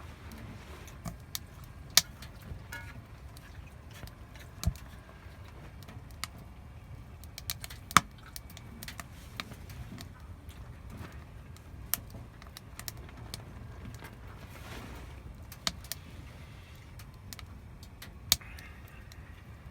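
Burning firewood crackling, with irregular sharp pops and snaps over a low steady rumble.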